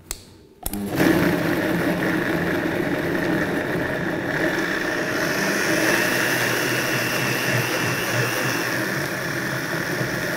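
Vitamix blender motor starting up about a second in and running while it purées strawberries and vinegar. It starts on low speed and is turned up gradually as the fruit liquefies, so the sound grows higher and brighter from about four seconds in.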